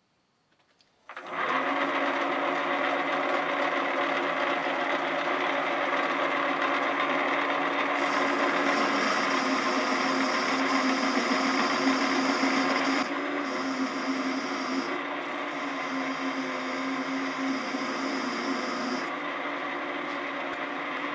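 Small school benchtop machine tool switched on about a second in, its electric motor and drive then running steadily. The higher part of the sound changes about eight and again about thirteen seconds in.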